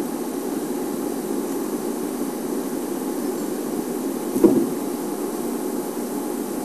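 Safari vehicle engine idling, a steady low hum, with one brief knock about four and a half seconds in.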